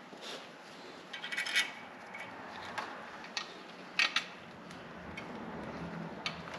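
Small loose metal hardware being handled: a short metallic rattle about a second in, then several separate sharp clinks, two of them close together about four seconds in.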